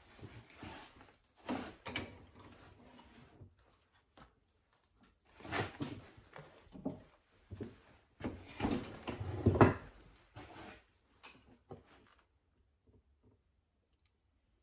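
Tools and small parts being picked up, rummaged through and set down on a wooden workbench: irregular bursts of clattering and knocks, the loudest about nine to ten seconds in, then only a few faint clicks near the end.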